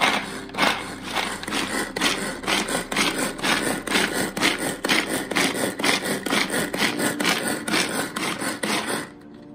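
Pull-cord manual food chopper worked by rapid pulls on its string, about three strokes a second: the cord rasps out and recoils while the blades chop soaked almonds in the plastic bowl. It runs freely without jamming, and the strokes stop shortly before the end.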